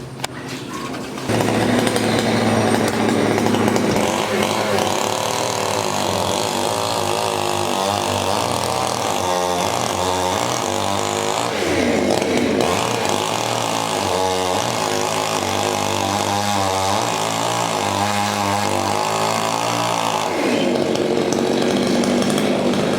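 Chainsaw starting up about a second in and running loudly while cutting a coconut palm. Its pitch rises and falls through the middle and settles steadier near the end.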